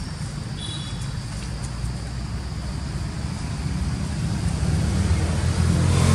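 Steady low rumble of a motor vehicle's engine, growing louder toward the end.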